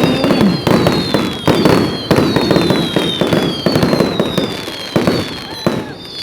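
Fireworks going off in quick succession: many overlapping bangs and crackles, with high whistles above them that slowly fall in pitch.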